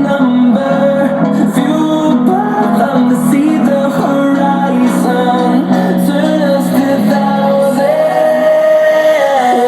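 Song with singing over instrumental backing, played loud on a speaker.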